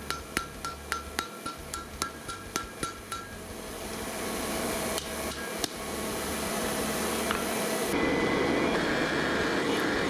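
Hand-hammer blows on hot steel at the anvil, about two a second, each with a short metallic ring. The hammering stops about three seconds in, and a steady rushing roar builds up and grows louder.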